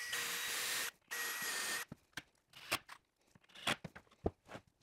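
Power drill with a countersink pre-drill bit boring into wood in two short bursts, the second starting about a second in, followed by scattered light clicks and knocks.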